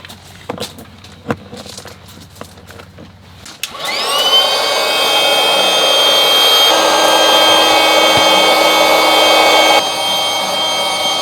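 A small electric motor, like a blower or air pump, spins up about four seconds in and then runs steadily with a high whine, dropping slightly in level near the end.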